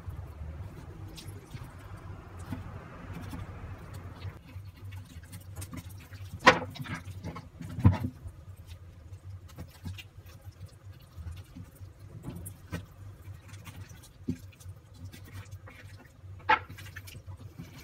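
Kitchen knife cutting and scraping through a raw lamb leg on a wooden cutting board: small scattered clicks and taps, with sharp knocks on the board about six and a half and eight seconds in and again near the end, over a steady low hum.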